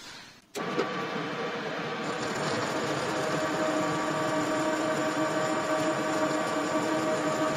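Metal lathe turning down the stripped outer teeth of a 4140 steel gear with a tungsten-carbide insert, a steady cutting noise with a constant hum through it that starts abruptly about half a second in. This is the roughing pass that takes the teeth down to the tooth root before weld build-up.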